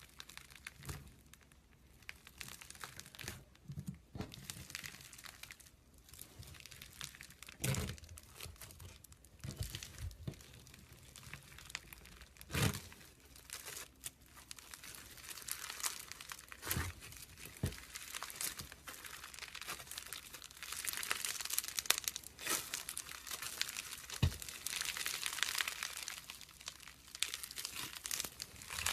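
Irregular crinkling and crackling from slime-making materials being handled, with scattered sharp clicks, denser and louder in the last third.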